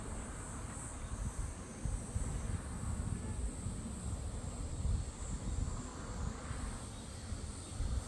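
Wind buffeting the microphone in uneven low gusts, over a steady high-pitched insect chorus.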